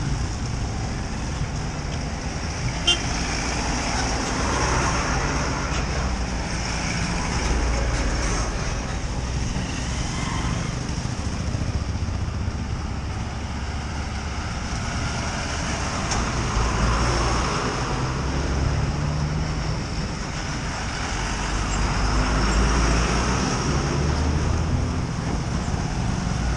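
Road traffic passing close by: trucks, buses and motorcycles, their engines rumbling and swelling as each vehicle goes past, with horns tooting now and then. A sharp click sounds about three seconds in.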